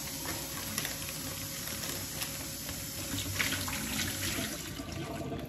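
Flour pouring from a paper bag into a metal measuring cup: a steady soft hiss, with a few light ticks.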